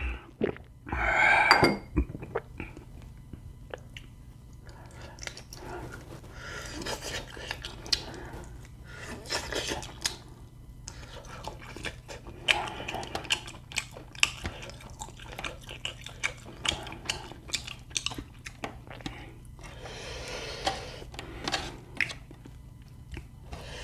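Close-up eating sounds: a person chewing and smacking on a meal of quail meat and rice, with many short clicks and clinks of dishes. A brief louder sound about a second in.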